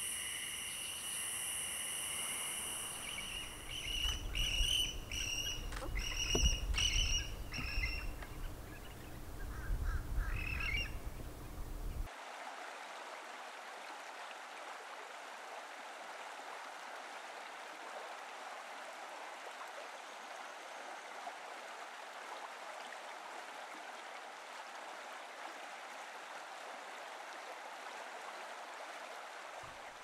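Wetland ambience: a steady high insect trill, joined from about four seconds in by a run of short bird calls over a low rumble. About twelve seconds in it changes abruptly to a steady, even background hiss with no distinct calls.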